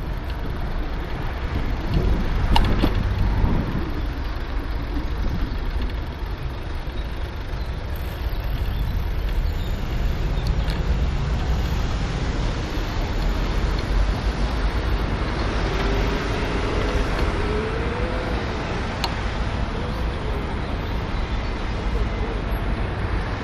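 Road traffic on a busy city street heard from a moving bicycle: cars and vans passing with a steady low rumble, and a louder swell about two to three seconds in.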